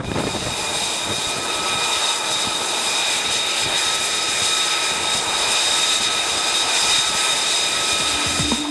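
F-35C's jet engine running steadily on the carrier deck: a loud rushing noise with several high, steady whining tones over it.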